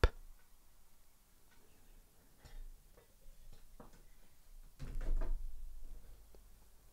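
A few faint clicks, then about five seconds in a louder rustle and knock with a low rumble as a laptop is handled and set down on a glass-topped table.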